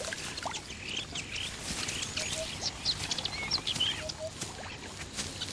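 Several wild birds chirping and calling: quick high chirps and short sweeping notes, with a soft, low two-note call a little over two seconds in and again about four seconds in.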